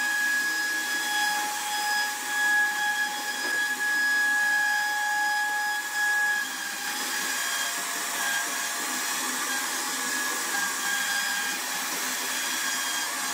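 CNC router spindle whining steadily as its cutter carves grooves into a wooden panel, with a hiss of cutting noise over the whine. About seven seconds in the whine drops slightly in pitch and eases a little.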